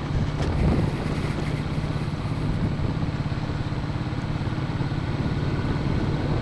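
Royal Enfield single-cylinder motorcycle engine running steadily under way, with an even firing pulse.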